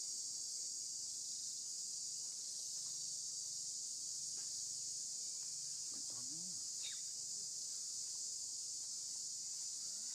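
Steady high-pitched buzz of an insect chorus.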